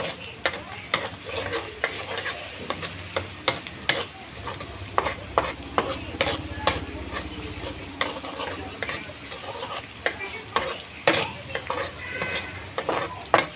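Minced garlic sizzling in hot oil in a wok, while a long-handled metal spatula scrapes and clacks against the pan in quick, irregular strokes.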